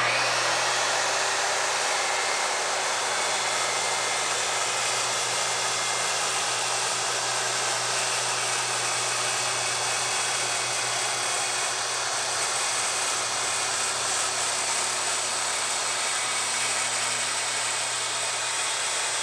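Corded circular saw starting abruptly and running steadily through one long rip cut in a sheet of 3/4-inch birch plywood.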